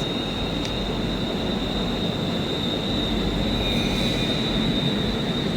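Train arriving at a terminus platform, its wheels squealing with a steady high-pitched tone over the rumble of the wheels on the track.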